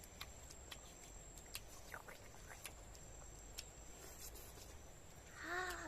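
Faint, scattered clicks and smacks of someone eating and chewing, with a short hummed vocal sound near the end.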